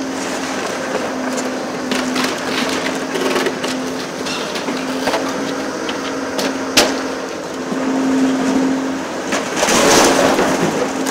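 Volvo EC750E high-reach demolition excavator running with a steady hum while its attachment tears into a brick wall: cracking and crunching masonry, a sharp crack about seven seconds in, and a rush of falling rubble near the end.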